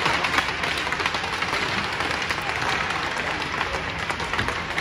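Crowd of spectators applauding in an indoor ice rink, many hands clapping steadily.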